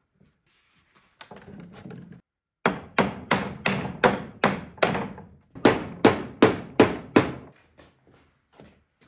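Wooden panel of an old chest being knocked home into its frame: a short scrape of wood on wood, then a steady run of sharp knocks on the wood, about two or three a second with a short pause midway, easing into lighter taps near the end.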